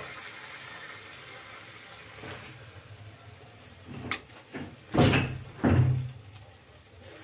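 Wooden spoon scooping thick carrot halwa out of a kadhai and onto a plate: a few scrapes and knocks of the spoon against the pan and plate, about four to six seconds in, the loudest about five seconds in.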